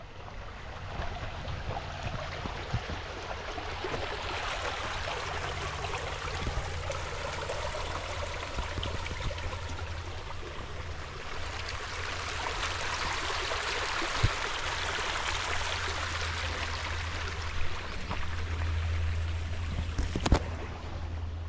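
Flowing river water, a steady rushing noise that swells toward the middle, with a few sharp knocks in the second half.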